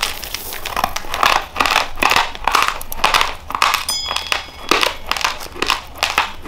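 Close-miked chewing of a mouthful of uncooked white rice: a rapid, irregular run of sharp, gritty crunches as the hard grains are bitten and ground.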